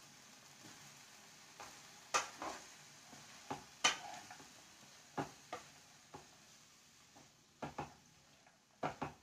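Wooden spatula stirring chopped amaranth greens, potato and chickpeas in a kadhai: a dozen or so irregular knocks and scrapes of wood on the pan over faint sizzling.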